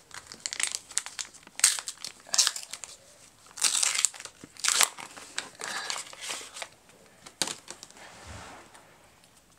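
Plastic wrapper of a Teamcoach trading-card pack crinkling and tearing as it is ripped open and the cards are pulled out, in a run of short rustles that die down near the end.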